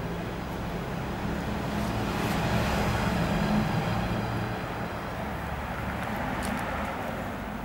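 A motor vehicle passing by, its engine hum and road noise swelling to a peak about three to four seconds in and then fading.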